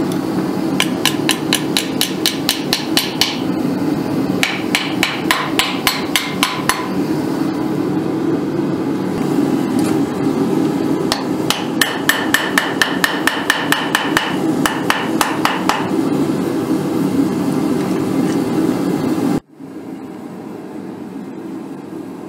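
Hand hammer striking red-hot wire on the horn of a steel anvil: several quick runs of light blows, about four or five a second, each blow leaving a short metallic ring, over a steady background roar. The hammering stops near the end with a sudden drop to a quieter steady noise.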